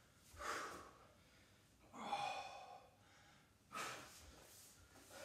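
A man's heavy breathing from exertion during a walkout stretch: three hard exhalations about one and a half seconds apart, the middle one voiced like a sigh.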